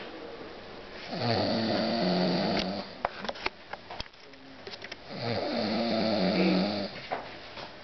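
Snoring: two long snores about four seconds apart, each lasting nearly two seconds, with small clicks in between.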